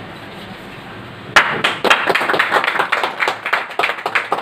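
Group of people clapping by hand, starting suddenly about a second and a half in with a sharp crack and going on as dense, irregular claps, over a steady background hubbub.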